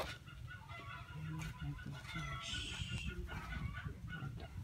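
Chickens clucking, with a brief higher call about two and a half seconds in, over a low rumble.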